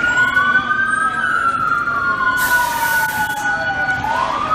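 Emergency vehicle sirens wailing, two at once: one holds a steady pitch while the other slowly falls and starts rising again near the end. A brief hiss comes in about two and a half seconds in.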